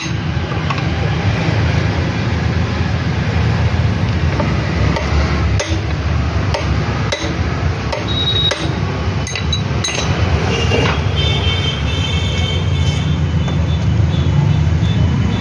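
Steady street traffic rumble, with a few sharp metallic clinks from tools at work on the rickshaw.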